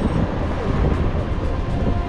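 Wind buffeting the microphone of a camera on a moving mountain bike, mixed with tyre rumble on asphalt: a loud, steady rough rush, heaviest in the low end.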